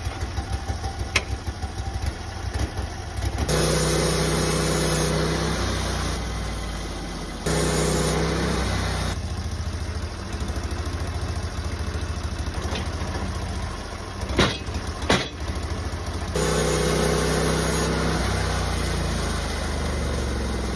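Portable bandsaw sawmill's engine running, growing louder and fuller three times for a few seconds each while milling a log down to a 12 by 12 cant. Two sharp knocks come about two-thirds of the way through.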